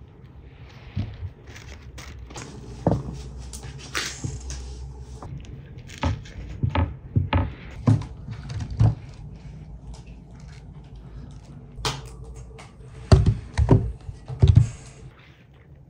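Hands working with food: scattered short taps, clicks and rustles as cabbage leaves are rolled around a filling on a wooden board and the stuffed rolls are set into a pan. The loudest knocks come near the end. A low steady hum runs underneath.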